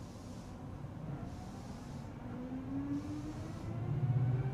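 Seibu 4000 series resistance-controlled electric train pulling away, heard from inside the car: the traction motor and gear whine rises slowly in pitch as the train picks up speed. A louder steady low hum comes in near the end.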